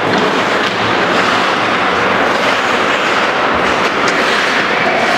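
Steady, loud noise of an ice hockey game in an indoor rink: skates scraping on the ice, with a few faint clicks of sticks and puck.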